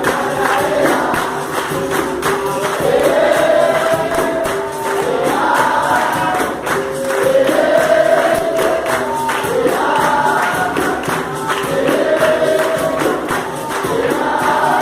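Capoeira roda music: a group singing a chorus in repeated phrases over pandeiro and berimbau percussion.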